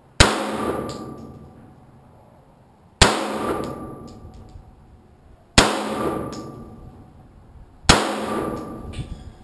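Four single gunshots fired a few seconds apart, each sharp crack followed by a long echoing decay, from a five-round string fired at a target.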